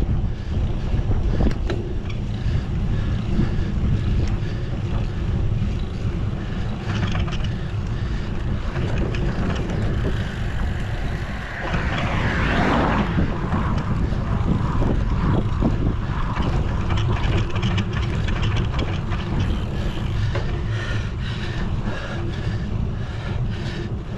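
Wind buffeting the microphone of a camera on a moving bicycle, a steady low rumble, with a brief louder swell about halfway through.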